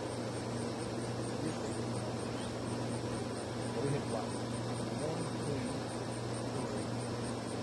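Outdoor ambience: insects chirping high and evenly, about three to four times a second, over a steady low hum.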